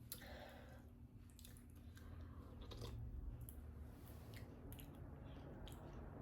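A person chewing food, faint, with small scattered mouth clicks.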